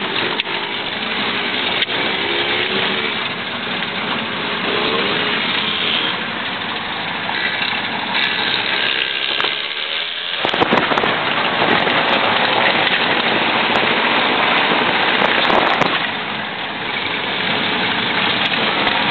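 Car driving on an unpaved dirt road, heard from inside the cabin: a dense, steady mix of engine and tyre-on-road noise. It breaks off abruptly a little past halfway and carries on.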